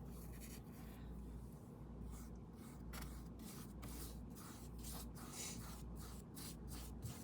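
Paintbrush stroking paint onto canvas in short, faint, scratchy strokes, about two or three a second, starting about two seconds in.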